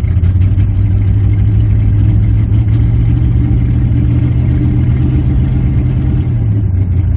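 1986 Chevrolet Camaro engine running steadily at raised revs, held for about six seconds, then dropping back toward idle near the end.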